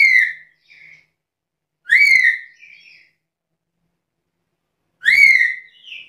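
Black-capped lory giving three loud calls, about two to three seconds apart, each a quick note that rises and then falls, followed by a fainter short note.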